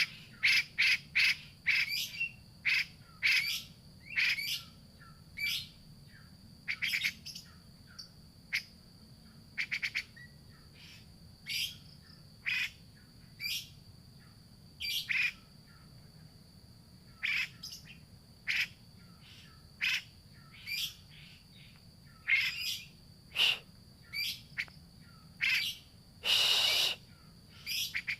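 Grey-cheeked bulbul (cucak jenggot) calling: short, sharp notes repeated about once a second, with a longer harsh, rasping call near the end. A thin steady high tone runs underneath.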